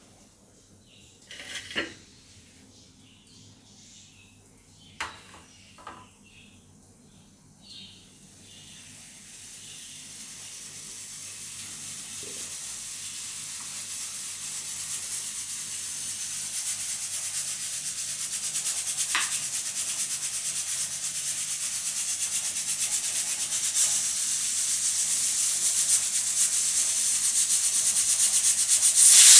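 Pressure cooker venting steam: a high hiss from the weighted valve starts about eight seconds in and grows steadily louder as the pressure builds. A few light clinks and knocks come before it.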